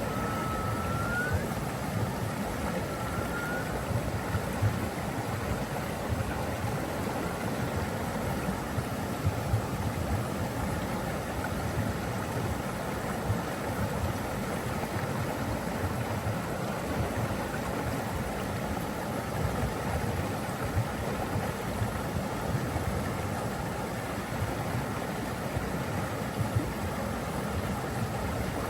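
Rushing water, a steady, unbroken rush.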